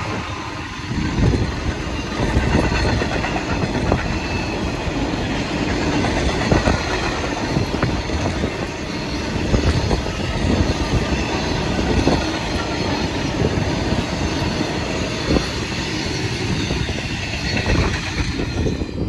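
Freight train of covered hopper wagons behind a Class 66 diesel locomotive rolling past at speed: a steady rumble with repeated clatter and knocks of wagon wheels over the rail joints.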